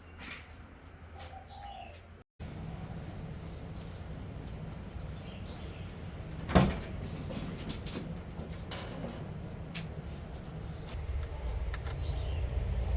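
A bird calling with short, high chirps that fall in pitch, four times, over a steady low rumble. One sharp knock comes about six and a half seconds in and is the loudest sound.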